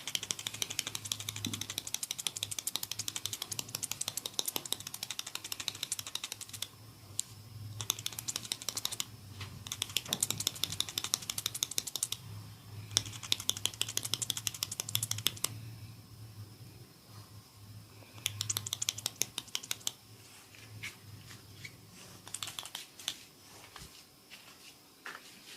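Hands working fast over an oiled scalp and hair during a head massage, making rapid crackling taps. They come in several bursts a few seconds long and thin to scattered clicks near the end.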